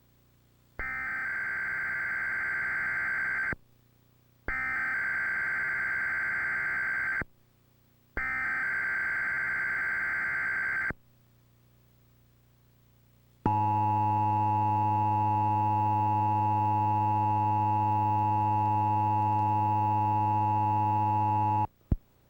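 Emergency Alert System header: three bursts of digital data tones (the SAME header), each lasting about three seconds with about a second between them. Then the two-tone attention signal sounds, held steady for about eight seconds and cut off with a short click. Together they open an EAS Required Monthly Test.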